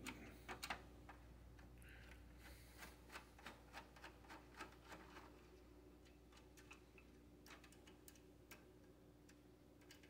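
Faint light clicks and ticks from screws and the power supply being worked out of a Dell desktop's case, with a run of about three quick ticks a second a few seconds in. A low steady hum lies underneath.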